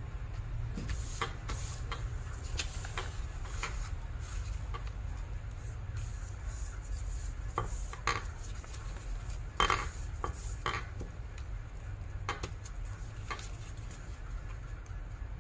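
A sheet of origami paper rustling and crackling as hands fold and crease it on a table, in scattered short crisp strokes over a steady low hum.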